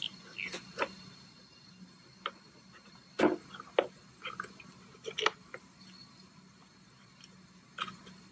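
Scattered short clicks and snaps as dental floss carries a latex rubber dam through the tight contacts between a dental mannequin's teeth, the loudest about three seconds in.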